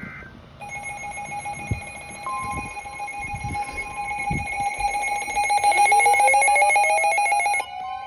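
Weather alert radios sounding their alarms for a severe thunderstorm warning. Several steady electronic tones begin just under a second in, and a further tone joins about two seconds later. A rising siren-like sweep with rapid pulsing comes in past the midpoint, and most of the sound cuts off abruptly near the end.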